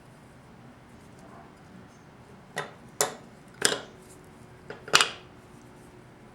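Sharp metallic clinks of hand tools against 4L60E transmission pump parts as a tight-fitting part is forced into place: five knocks with brief ringing in the second half.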